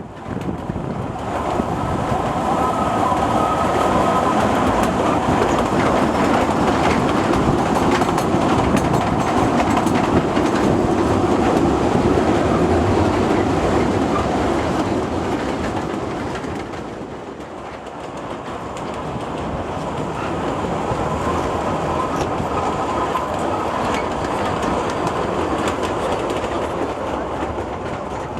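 Narrow-gauge Kurobe Gorge Railway trolley train running, its wheels clattering over the rail joints with a steady rumble that eases off for a few seconds past the middle and then builds again. A faint squeal from the wheels comes in now and then.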